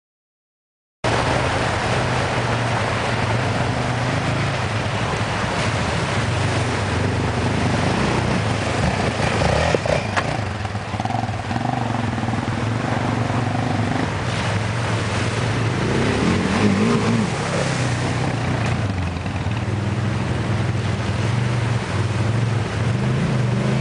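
Off-road quad bike engines running and revving in rising and falling pitch as they ford a rocky stream, over the rush of the river water. The sound starts suddenly about a second in.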